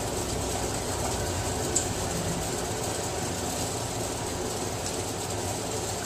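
Steady low hum and hiss of background noise, with one faint click a little under two seconds in.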